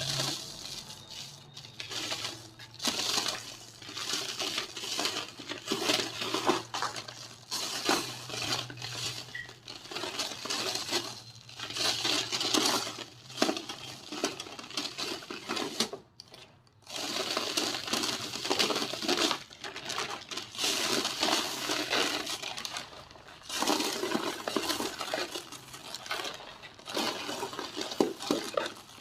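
Dry, hardened white cement shapes being crumbled, with crisp crackling and small pieces clinking as they break. The crumbling comes in bursts, with two brief pauses in the second half.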